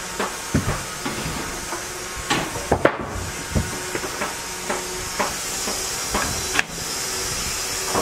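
Irregular wooden knocks and metal clanks as a log is levered into place and clamped on a band sawmill's steel bed, with the loudest thuds bunched a little before the middle, over a steady hiss.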